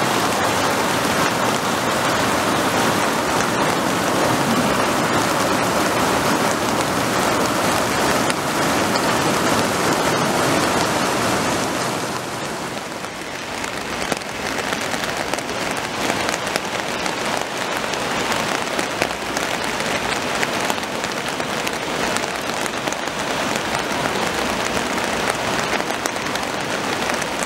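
Floodwater gushing from storm-drain outfalls onto the beach, a dense, steady rushing. About twelve seconds in it gives way to a lighter, crackling hiss of rain and runoff at the water's edge.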